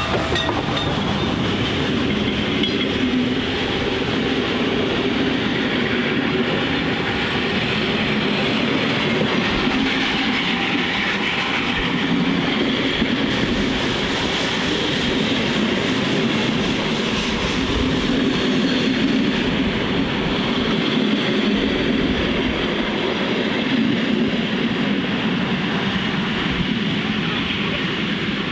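1927 steam locomotive No. 1136 'Pikku Jumbo' hauling its passenger carriages past at close range: a steady noise of escaping steam and wheels rolling on the rails as the train goes by.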